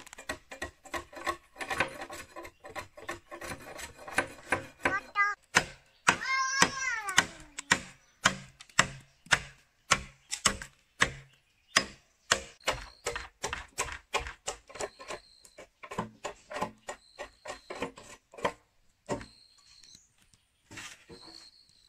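Quick, regular strikes of a tool on bamboo, about three to four a second, slowing in the second half and breaking off for a moment near the end.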